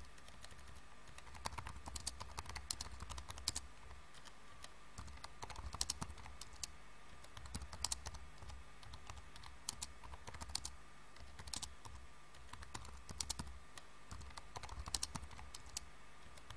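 Faint typing: irregular small runs of light clicks every second or two, over a low steady hum.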